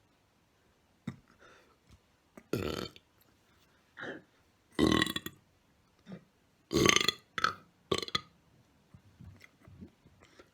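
A person burping over and over, deliberately. There are three long, loud burps about two and a half, five and seven seconds in, with shorter burps between them.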